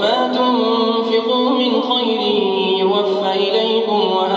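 A male reciter chanting the Quran in a slow, melodic style, drawing out long held notes that bend in pitch, with a rising glide at the start.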